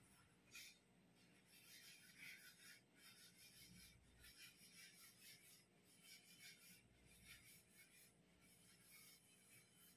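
Near silence with faint, irregular scratchy rustling throughout.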